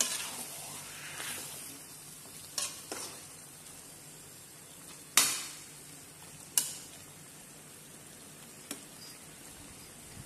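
Beef and onion masala frying with a faint steady sizzle in a metal kadhai while a slotted metal spatula stirs it, knocking and scraping against the pan several times, most sharply about five seconds in.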